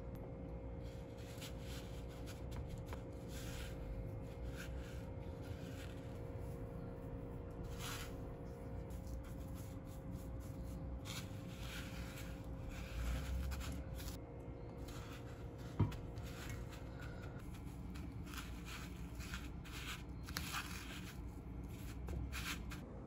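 Soft rustling and patting of fingers pressing raw meat cutlets into a bowl of panko breadcrumbs, with small irregular taps and one brief knock. A faint steady hum runs underneath and stops about three quarters of the way through.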